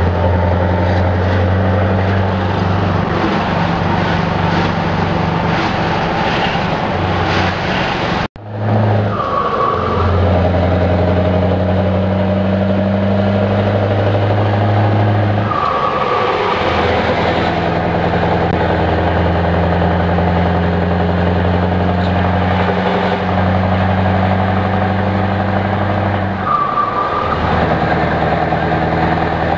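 Scania truck's diesel engine heard from inside the cab, pulling steadily under way. Its note breaks off briefly three times, each break with a short whistle, as in gear changes. The sound cuts out for a moment a little after 8 seconds.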